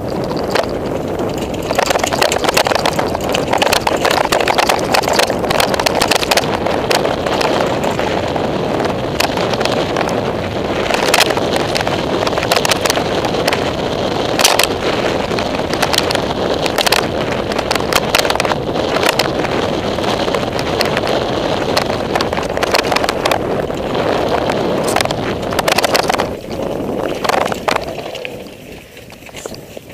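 Downhill mountain bike ridden fast over dirt and rock: a steady rush of wind and tyre noise on the camera microphone, with frequent sharp rattles and knocks from the bike hitting bumps and stones. The rush eases about two seconds before the end.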